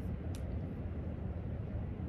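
Steady low rumble of library room ambience, with one faint short click about a third of a second in.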